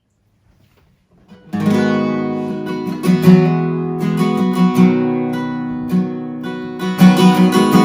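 Acoustic guitar strumming chords in a steady rhythm as a song intro, starting about a second and a half in after near silence.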